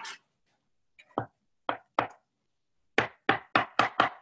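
A metal kitchen utensil knocking sharply against a baking dish, a string of separate clacks: three spaced out, then five in quick succession, about three a second, near the end.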